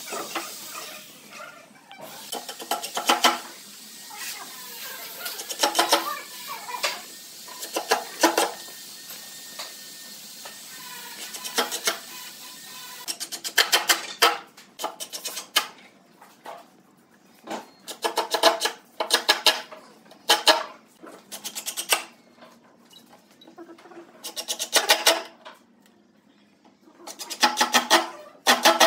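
A cordless drill/driver driving screws into pine boards in repeated short bursts, a dozen or so runs of under a second each, with wood knocking and handling between them.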